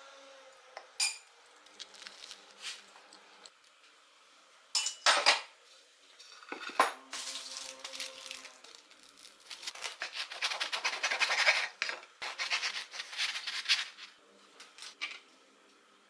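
Cutlery and a plate clinking, with a few sharp knocks, then a crusty baguette handled in its paper bag and sawn open with a knife: a long run of quick, crackling strokes about two-thirds of the way in.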